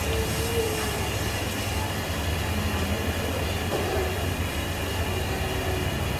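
Steady low rumble and hum of machine-like room noise, with a few faint steady high tones over it.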